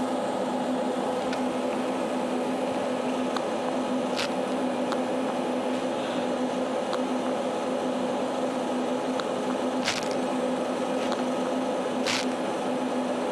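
Steady electrical hum with a hiss from the running test bench of power supplies and powered-up car amplifiers. A few sharp clicks come as the bench meters are handled and switched back on.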